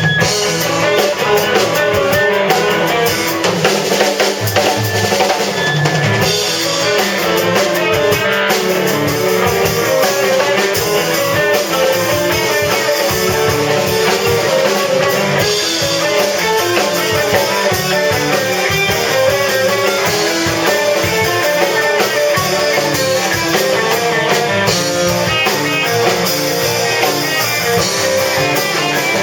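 Band music with drum kit and guitar playing a steady beat.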